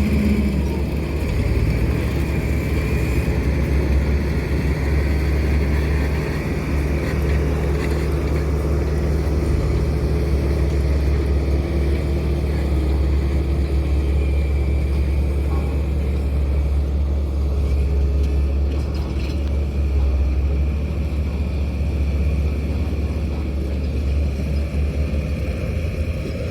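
Diesel engine of heavy road-construction machinery running steadily with a deep, continuous low drone.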